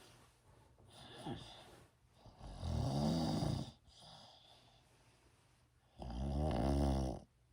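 A person snoring: two loud snores of about a second each, a few seconds apart, with fainter breath sounds between them.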